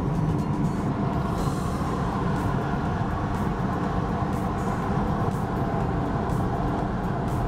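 Steady engine and tyre road noise of a moving car, heard from inside the cabin.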